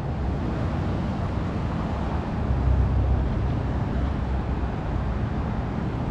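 Steady rumble of car traffic on the road below, mixed with wind on the microphone that swells briefly near the middle.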